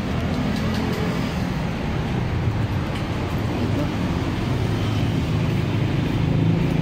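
A motor vehicle's engine running steadily, growing louder near the end.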